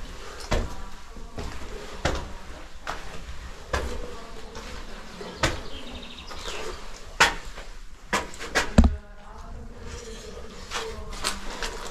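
Footsteps climbing gritty concrete spiral stairs, scuffing and crunching on loose debris, with a step about every second. A few heavier knocks come close together about eight to nine seconds in.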